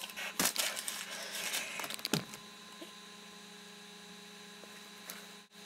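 Rustling and two sharp knocks in the first couple of seconds, then only a steady low electrical hum that cuts out suddenly near the end.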